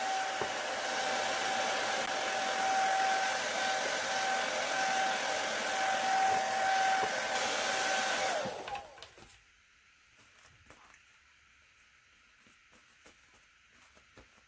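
Handheld hair dryer blowing with a steady whine, switched off about eight and a half seconds in, its whine falling away as the motor spins down. After that only faint small taps.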